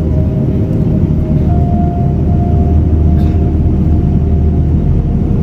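Airliner engine noise heard inside the passenger cabin: a loud, steady low rumble with a faint steady whine above it.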